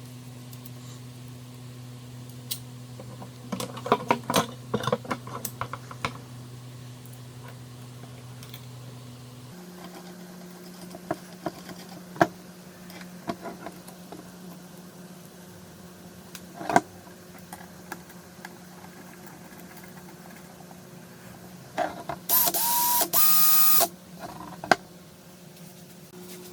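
Workshop handling sounds: scattered clicks and knocks over a steady low hum, with a cluster of knocks a few seconds in. Near the end comes a loud burst of steady whine and hiss lasting about two seconds.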